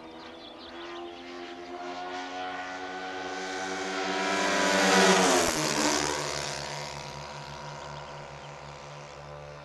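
Twin ASP four-stroke glow engines of a radio-controlled P-38 Lightning model in flight, growing louder as it approaches, peaking about halfway, then dropping in pitch and fading as it flies past.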